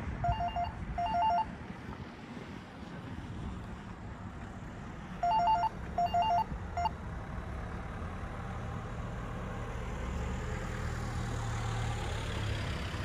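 Telephone ringing with an electronic two-tone trill: two rounds of rings, about a second in and again about five seconds in. A low steady hum builds in the second half.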